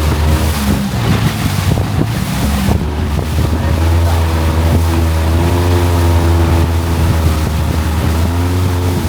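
Longtail boat engine running steadily at cruising speed, a loud low drone; its pitch dips briefly near the end.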